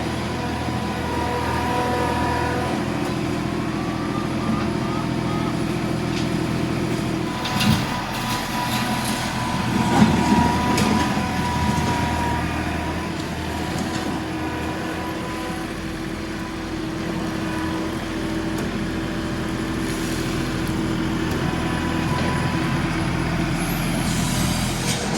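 A John Deere 2038R compact tractor's three-cylinder diesel engine running steadily under working load. A few sharp clunks and some clatter come from the forks breaking up debris, the loudest about 8 and 10 seconds in.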